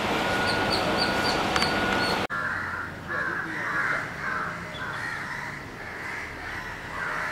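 Crows cawing in a steady run of short caws, about two a second, after the noise of the departing train cuts off abruptly about two seconds in.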